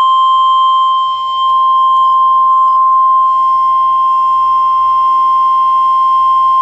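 NOAA Weather Radio 1050 Hz warning alarm tone: one loud, steady single-pitch tone that cuts off sharply near the end. It signals that a warning message follows.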